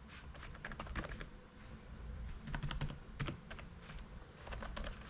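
Typing on a wireless split ergonomic keyboard: quick, irregular key clicks.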